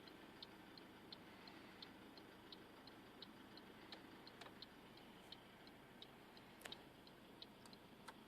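Faint, even ticking at about three ticks a second over near silence, with a few sharper clicks in between.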